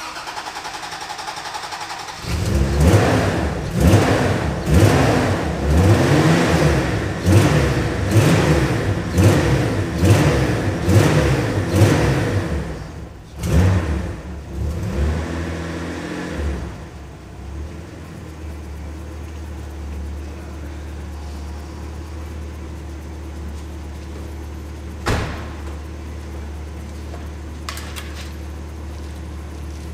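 Toyota MK2 Celica Supra's 5M-GE inline-six, cold in below-freezing weather, revved in repeated blips about once a second for some fifteen seconds, then settling into a steady idle to warm up. A single sharp click about 25 seconds in.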